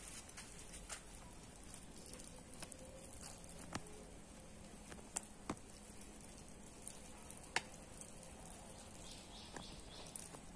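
Water sprinkled from a plastic mineral-water bottle onto soil in small seedling polybags: faint pattering, with a few sharp clicks scattered through, the loudest about seven and a half seconds in. A faint steady high hiss runs behind it.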